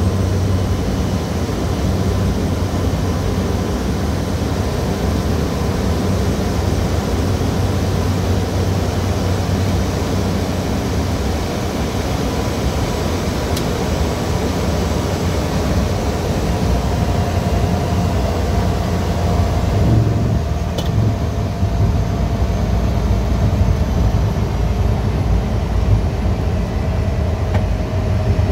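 Steady drone of a Cessna Caravan's PT6A turboprop engine and propeller, heard from inside the cockpit as the aircraft rolls along the runway after landing. About 20 seconds in, the hiss thins out, a single click sounds, and a faint whine slowly falling in pitch carries on underneath.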